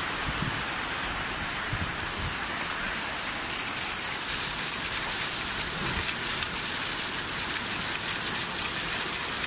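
Heavy rain falling on paved ground, a steady hiss. From a few seconds in, rainwater gushes out of a drainpipe outlet and splashes onto the paving close by.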